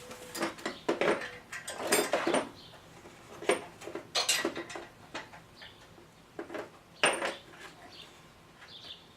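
Metal tools clinking and clattering against each other and hard surfaces, a run of irregular sharp knocks with short ringing, the loudest a little after 7 seconds in.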